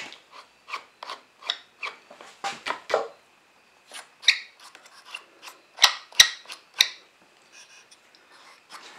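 Small wooden thumbwheels on a planer sled's adjustable supports being turned by hand, giving irregular short scrapes, clicks and wood-on-wood knocks as the supports are raised to meet the board, with a few sharper clicks a little past the middle.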